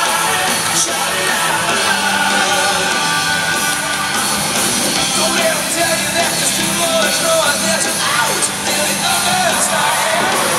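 Loud music with singing.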